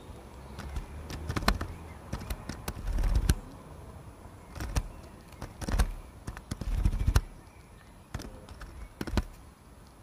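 Great tit pecking at a wire-mesh peanut feeder: irregular sharp taps and clicks, with a few louder low thuds in between.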